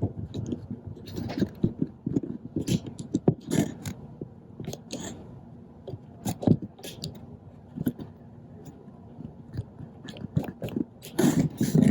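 Irregular handling noise: a rapid, uneven run of scrapes, taps and crackles.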